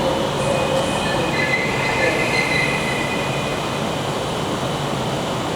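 Passenger train moving slowly over the rails with a steady rumble, its wheels squealing in high thin tones for a couple of seconds near the start.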